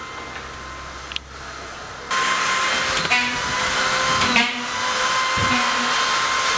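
A low hum, then about two seconds in a loud, steady whirring machine noise with a constant whine starts up and keeps going.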